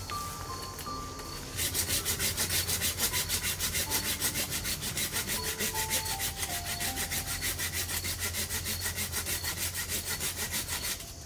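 Hand saw cutting bamboo. Quick, even back-and-forth strokes start about one and a half seconds in, at about four or five strokes a second, and stop just before the end.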